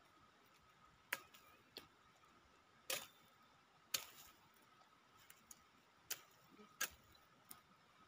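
Faint, scattered clicks and snaps, about seven over several seconds, as cassava roots and stems are pulled and broken out of loose soil by hand.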